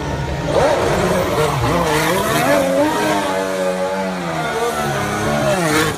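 Ferrari Formula One car's engine revving up and down again and again as it spins its rear tyres on the spot.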